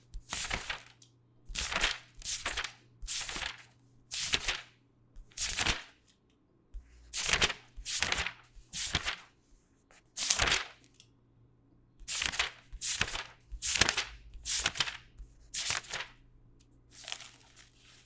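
A sheet of paper sliding, in repeated short swishes, roughly one a second with a few longer pauses.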